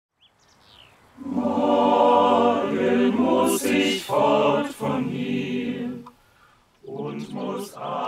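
Voices singing a cappella together in harmony, starting about a second in. The phrases are broken by short breaths, and there is a pause about six seconds in before the singing starts again.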